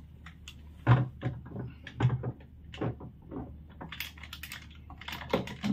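Plastic parts of a KENT Gold gravity water purifier knocking and clicking as they are handled and fitted together: a run of irregular short taps and clunks, with a quick cluster of clicks about four seconds in.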